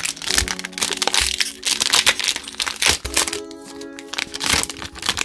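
Foil Pokémon booster-pack wrapper crinkling and crackling in the hands as the pack is opened, over steady background music.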